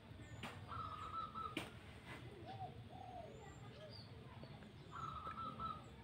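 Zebra doves (perkutut) cooing softly, a short run of low notes about midway, with faint high chirps from other small birds. A flat buzzing note sounds twice, about a second each time, and there are two sharp clicks in the first two seconds.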